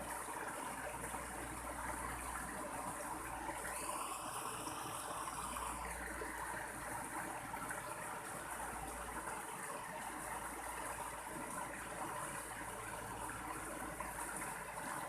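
Mountain stream water running steadily. About four seconds in, a brief faint tone rises and falls again over roughly two seconds.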